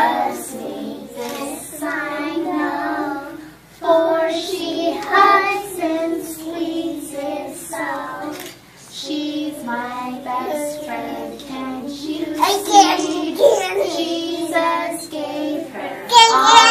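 A group of young children singing a song together, with short breaks between phrases.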